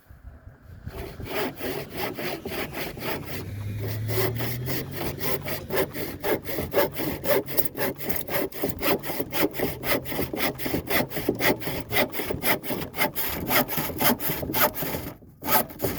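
Handsaw cutting through a wooden board in quick, even back-and-forth strokes. The strokes start about a second in and briefly pause near the end.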